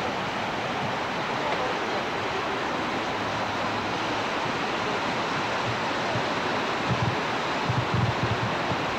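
Steady rushing of a wide, fast river, an even hiss that holds at one level, with a few low thumps near the end.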